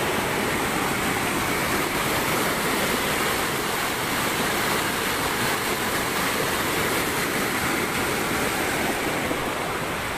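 Muddy, swollen river in flood rushing across a road: a loud, steady, unbroken rush of water.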